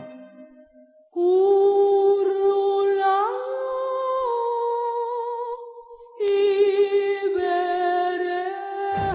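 Voices humming a cappella in long held notes, in two phrases. The first phrase steps up in pitch partway through, and there is a brief break before the second begins about six seconds in. It follows a second of near silence.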